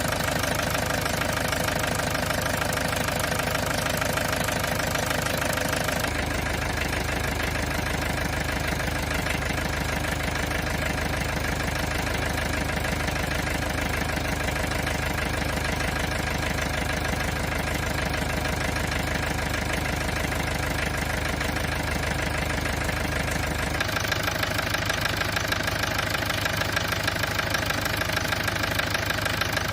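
Toyota 1ND-TV 1.4-litre four-cylinder turbodiesel running steadily at idle. The sound turns duller about six seconds in and brighter again near the end. The owner says the engine is not at its best, with a burnt gasket and the wrong oil in it.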